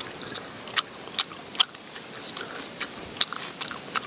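A person chewing with the mouth open, irregular sharp wet smacking clicks as he eats.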